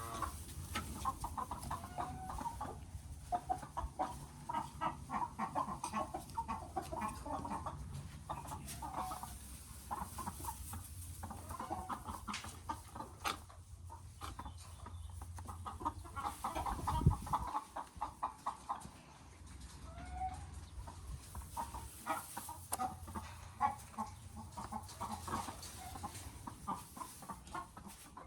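Chickens clucking steadily, many short calls overlapping, over a low rumble. One dull thump about two-thirds of the way through.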